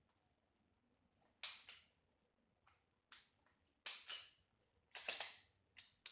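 Century Arms TP9SA pistol being field-stripped by hand: about half a dozen short metallic clicks and scrapes of the slide and parts, some in quick pairs.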